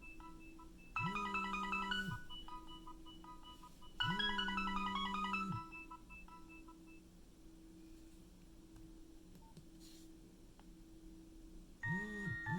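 Nokia 6030 mobile phone playing a polyphonic ringtone: a short melody of bright beeping notes that repeats twice with a pause between, each time with a low buzz that starts and stops with it. The phone then goes quiet for several seconds. Near the end a different ringtone melody begins, with two short buzzes.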